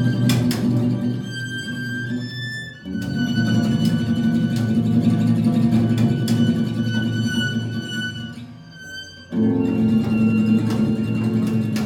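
A live acoustic trio plays: a violin carries the melody over an acoustic guitar and a double bass. Twice, about three seconds in and again near nine seconds, the guitar and bass drop out briefly, leaving the violin holding notes before they come back in.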